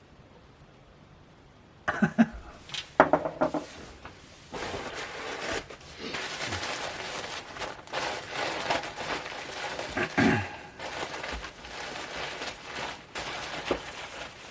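Paper wrapping rustling and crinkling as a wrapped item is unwrapped by hand, starting about two seconds in, with a few sharp clicks near the start.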